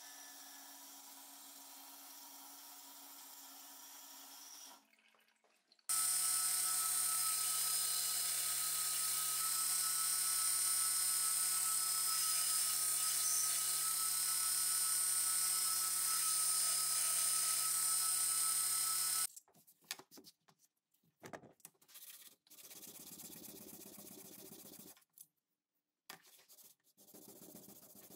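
A belt grinder running steadily and loudly for about thirteen seconds, with a constant whine, starting and stopping abruptly. Before it, a metal-cutting saw runs more quietly. After it come short, broken-up quieter shop sounds.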